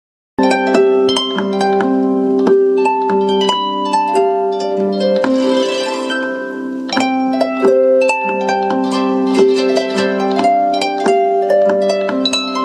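Samsung Galaxy Note 3 alarm tone, a harp-like melody of quick plucked notes, playing through a SOEN TRANSIT Bluetooth speaker. It starts about half a second in, with a brief shimmering wash near the middle.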